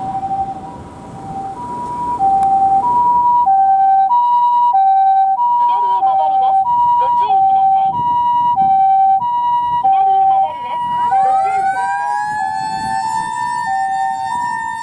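Japanese ambulance's electronic two-tone hi-lo siren (pee-poh) alternating steadily, getting much louder about two seconds in. About ten seconds in, a mechanical motor siren winds up in a rising wail, then holds its tone alongside it.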